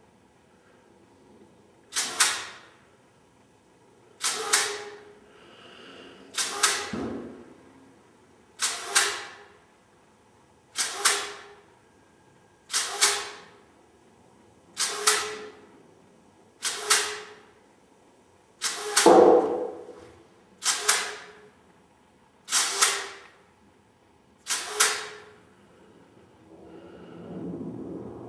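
Compressed air from a hand-held blow gun on an air hose, fired in short blasts about every two seconds: twelve sharp hissing bursts, each starting suddenly and tailing off, with a faint low ring under each.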